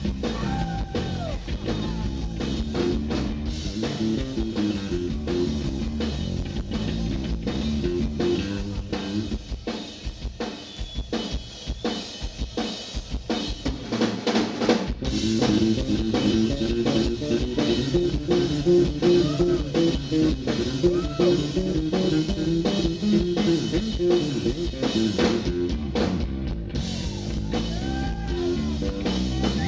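Hard rock band playing live, with drum kit and electric guitar. It thins out for a few seconds around the middle, then the full band comes back in louder about halfway through.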